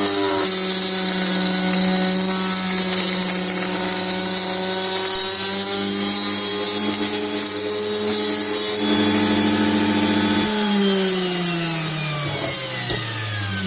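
Milling spindle motor running at a steady speed while milling holes in aluminium profile, with a high hiss over its hum. About ten and a half seconds in, its pitch falls steadily as the spindle winds down.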